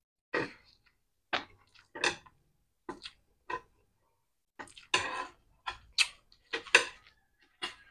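Chopsticks clicking and scraping against an electric grill plate while breaking up and picking at crispy scrambled egg: about a dozen short, sharp clicks at an uneven pace, a few slightly longer scrapes about five seconds in.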